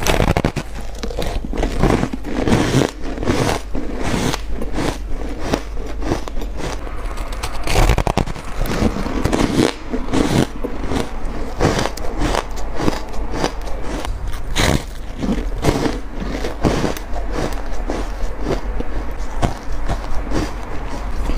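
A person biting into and chewing squeaky ice blocks dusted with matcha powder, in a continuous run of crisp crunches and cracks as the ice breaks between the teeth.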